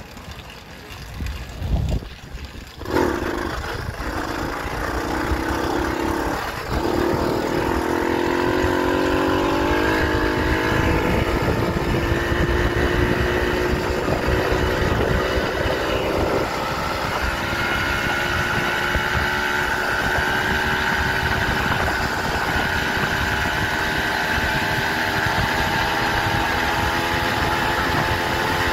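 Motorized bicycle's small engine pulling away, its pitch climbing over several seconds as it speeds up, then running steadily at cruising speed. A few thumps come in the first three seconds, before the engine note sets in.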